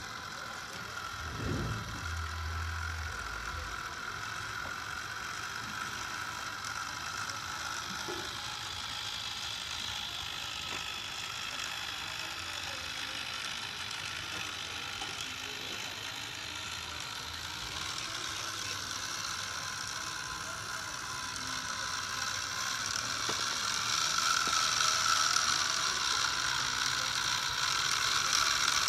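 Small geared electric motors of two model tractors whirring and grinding steadily as they strain against each other on a chain in a tug-of-war. The gear whine gets louder toward the end.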